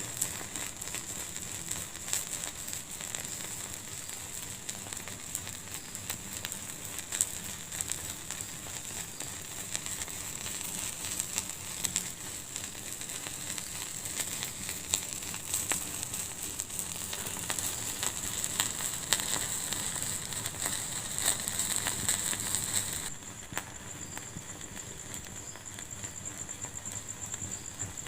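Wood fire in a fireplace crackling and hissing, with frequent small sharp pops. About 23 seconds in the sound drops suddenly to a quieter hiss.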